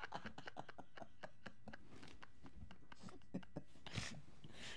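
Faint, irregular light clicks and soft rustling from hands handling small objects.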